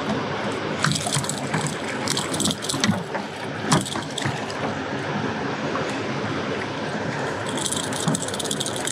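Steady rush of water from a dam's open spillway, with splashes and rattling clicks as a hooked striped bass thrashes at the side of a boat during unhooking.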